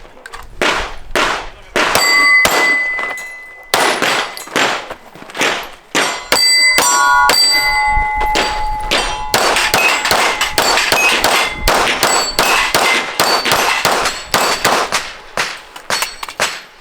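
A pistol fired in rapid strings of shots at steel targets during a timed match stage. Hit plates clang and ring on after the shots.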